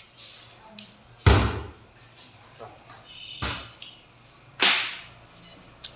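Three loud bangs, the first about a second in and the others following about two seconds and one second later, each dying away quickly; faint high squeaks come between them.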